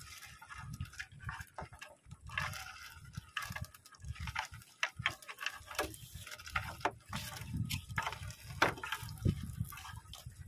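Water splashing and dripping with irregular knocks, as a wet gill net is hauled by hand into a small fishing boat.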